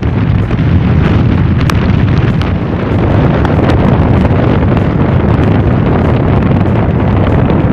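Strong wind buffeting the camera's microphone, a loud, steady low rumble.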